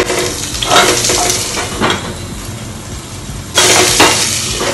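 Chopped onion and green chilli sizzling in hot oil in a frying pan, with a sudden louder burst of sizzling about three and a half seconds in.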